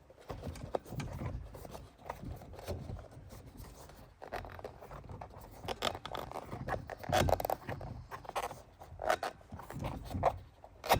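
Rubber bead of a new 26 x 1.95 tire being worked by hand over the edge of a wheel rim: irregular rubbing and scraping strokes, louder in the second half, with a sharp click near the end.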